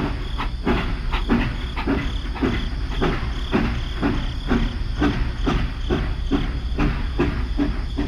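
Battery-powered toy steam locomotive running along plastic track, with a steady rhythmic chuffing of about three beats a second over the hum of its small motor.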